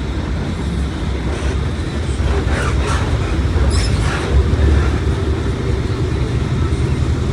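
Mercedes-Benz OF1721 bus's diesel engine running with a steady low rumble under way, with brief higher-pitched noises about two and a half and four seconds in.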